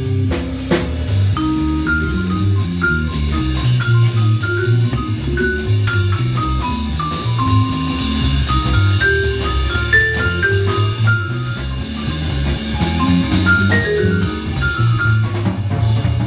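Vibraphone played with mallets in a running jazz solo of quick single notes climbing and falling, over a drum kit keeping time on cymbals and drums.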